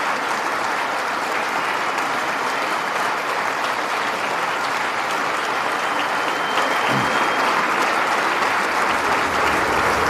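Sustained applause from a large audience of lawmakers, a dense even clatter of many hands clapping that grows slightly louder in the last few seconds.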